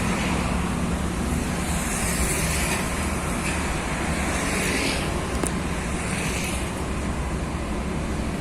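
Road traffic going past steadily: a continuous low engine rumble with tyre and wind noise that swells and fades a few times as vehicles pass.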